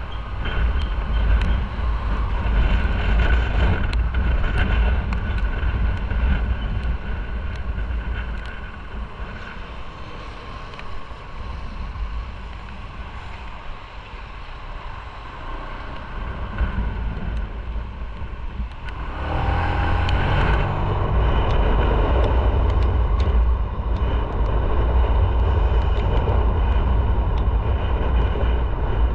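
Motorcycle riding on wet streets: engine and wind noise, with the engine note audible over the rush. It goes quieter from about ten seconds in while the bike waits at a red light, then rises sharply about nineteen seconds in as it pulls away and rides on.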